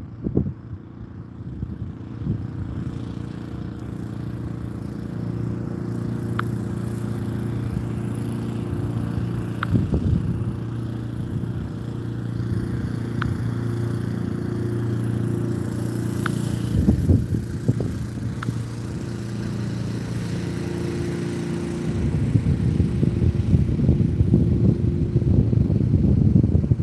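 A steady low engine drone, getting rougher and louder about three quarters of the way through.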